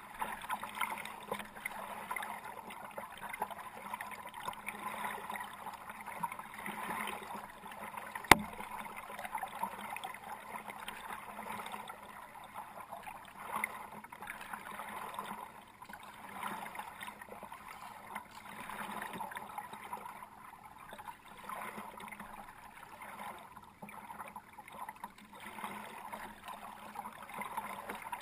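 Kayak paddling: water splashing and dripping off the paddle in repeated swells. There is a single sharp knock about eight seconds in.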